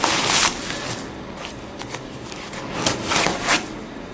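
Hands rustling and scraping a knit sneaker while pulling its insole out. There is a short burst of rustling at the start and a longer one about three seconds in, with faint clicks between.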